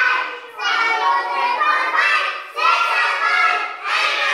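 A class of young children singing together, led by a woman, in phrases of about a second and a half with short breaks between.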